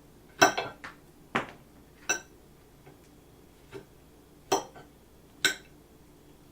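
A fork clinking against a plate while eating, about seven separate sharp clinks at uneven intervals, each ringing briefly.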